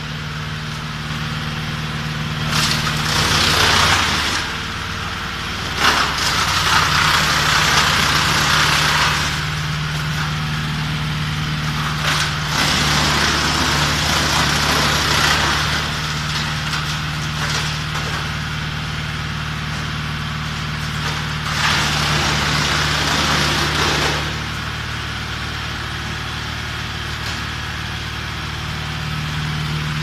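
40 hp mobile wood chipper running steadily, with four spells of loud chipping noise a few seconds each as wood is fed through and chips are thrown out of the discharge chute.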